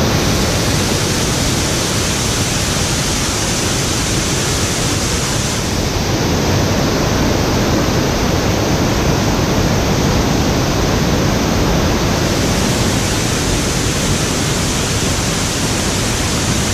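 Waterfall cascades: water rushing steadily over tiered limestone steps into pools, a dense, even rush of noise.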